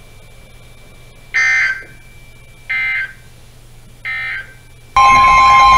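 Weather radio playing three short bursts of EAS/SAME end-of-message data tones, about a second apart, which mark the end of a NOAA Weather Radio warning. About five seconds in, a loud, steady alert tone starts on the weather radio.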